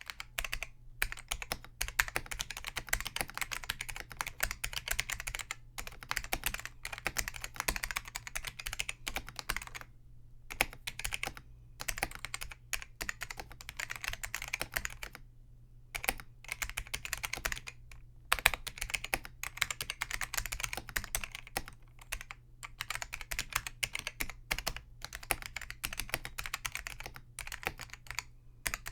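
Continuous typing on a Focus FK-2001 mechanical keyboard with Hua-Jie T1 Alps-clone switches, their click leaves removed: rapid clattering keystrokes in runs, broken by brief pauses. The switches still have a strong tactile bump from the slider pushing the contact leaf. A faint steady hum lies underneath.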